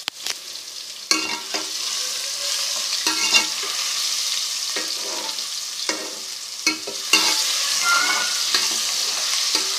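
Sliced onions and garlic-ginger paste frying in hot oil in a metal pot, with a steady sizzle. A steel spoon stirs them, clinking and scraping against the pot's side about once a second.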